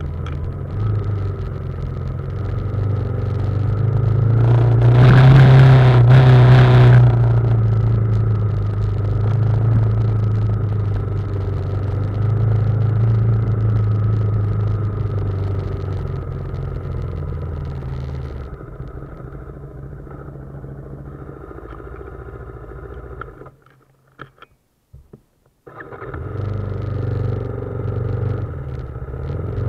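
BMW G310GS's single-cylinder engine running at a low, steady pitch while descending a dirt trail, with a louder rush about five seconds in. It grows quieter later and drops almost to silence for about two seconds before the engine sound returns.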